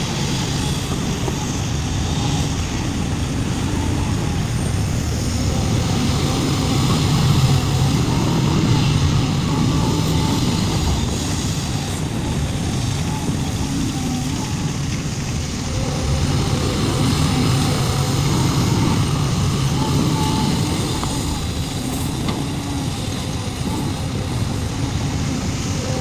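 Heavy diesel engine of earthmoving machinery running steadily: a low rumble that swells a little now and then.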